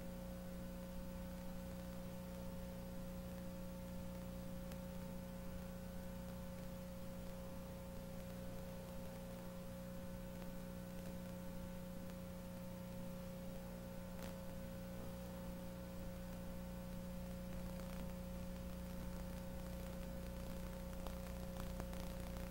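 Steady electrical mains hum with light hiss: the empty sound of a blank stretch of the recording at a break in the broadcast.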